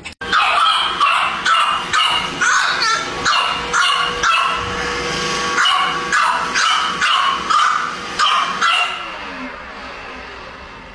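French bulldog puppy barking at a robot vacuum: a string of short, high yapping barks, about two a second, each falling in pitch, stopping about nine seconds in.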